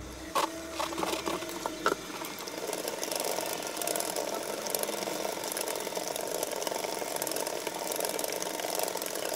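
Loops & Threads Knit Quick plastic circular knitting machine being cranked by hand: a few separate clicks, then from about two seconds in a steady, fast clicking rattle as the needles run round the track.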